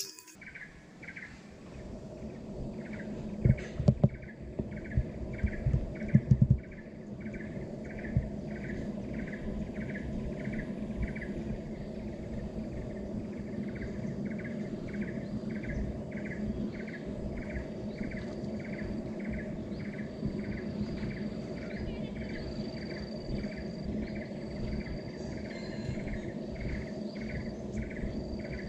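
Insect chirping in an even rhythm, about two or three pulses a second, over steady low background noise. A few loud thumps come between about three and six seconds in.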